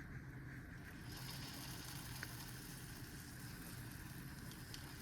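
Steak searing in melted butter in a hot pan, a quiet steady sizzle, with one faint click about two seconds in.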